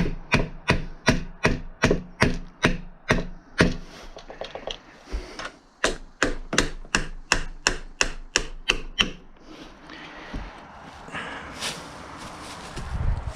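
A mallet rapidly striking a door-latch mortise chisel, cutting the latch-plate recess into the wooden door edge: two runs of sharp wooden knocks, about three a second, with a short pause between them. Softer scraping and rubbing follow near the end.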